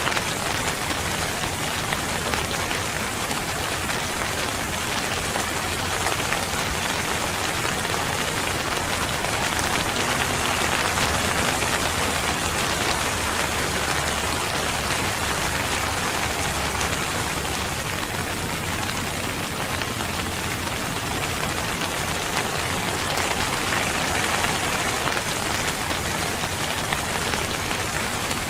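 Steady rain falling, an even, dense hiss of many drops with no breaks.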